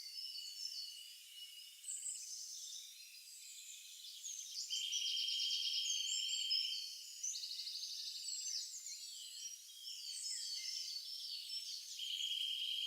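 Forest birds chirping and whistling in many short, overlapping calls. A rapid, buzzing insect trill comes in for about two seconds, once about five seconds in and again near the end.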